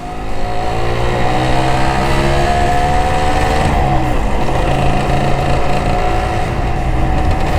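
Honda LS125R's single-cylinder four-stroke engine running under way, the revs rising slightly in the first second and then holding steady, with a brief dip and pick-up about four seconds in. Wind noise rushes under the engine.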